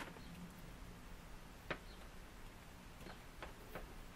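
A few faint, sharp clicks and taps from handling a small power cable with its plug and converter box: one a little before the middle, then three in quick succession near the end.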